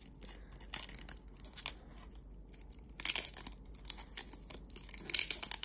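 Protective plastic film crackling and tearing as it is peeled by hand off a new watch, with louder crackles about three seconds in and again near the end.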